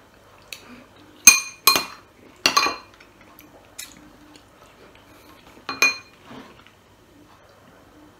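A metal spoon clinking against dishes: about six sharp clinks, each with a brief ring, the loudest between one and three seconds in and another near six seconds.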